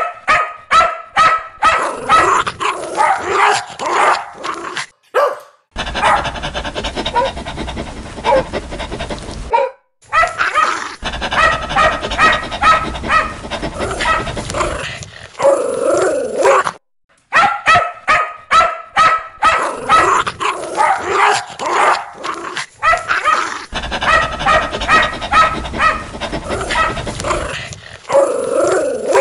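Dog barking loudly and repeatedly in quick runs of about two to three barks a second, with a few short breaks.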